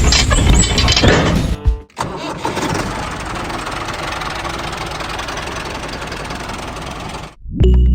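An engine starting, then running steadily for about five seconds before cutting off suddenly, with music over the first two seconds.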